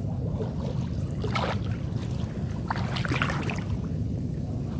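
Floodwater splashing and sloshing in a few irregular bursts over a steady low rumble, as a gill net is hauled through a flooded rice field.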